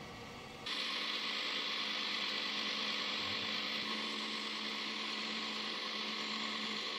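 Vertical milling machine cutting 5/8-inch aluminium plate with an end mill: a steady, dense cutting noise over a faint steady hum, stepping up in level about half a second in.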